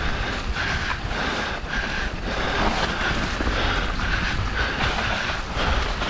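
Mountain bike descending a dirt and leaf-litter singletrack at speed: steady wind rush on the microphone and tyres rolling over the trail, with a high buzz from the bike that comes and goes every half second or so.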